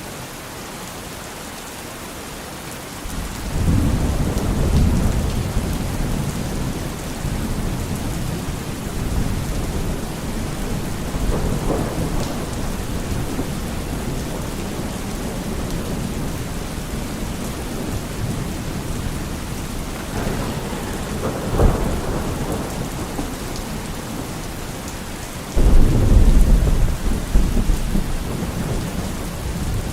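Steady rain falling in a thunderstorm, with rumbling thunder: a low rumble breaks in a few seconds in and rolls on, swells again twice, and a heavier crack of thunder comes near the end.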